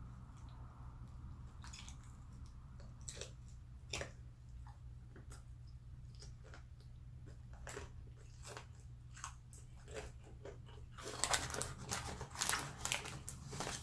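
Biting into and chewing crispy fried chicken: scattered crunches and mouth clicks, turning to dense, louder crunching about eleven seconds in.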